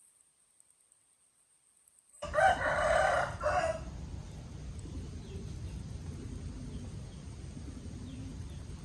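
A rooster crows once, starting about two seconds in: one loud crow of about a second and a half with a brief break near its end. A steady low background rumble follows.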